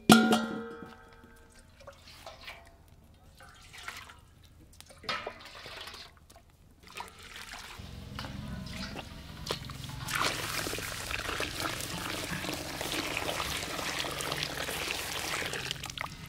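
A sharp metal clang with brief ringing right at the start, then a few scattered knocks. From about eight seconds in, hot cherry-branch dye liquid is poured from a pot into a wide enamel basin, a steady splashing pour that is loudest from about ten seconds until just before the end.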